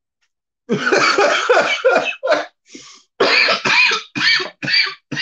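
A man's coughing fit: a long first cough about a second in, then a string of shorter coughs.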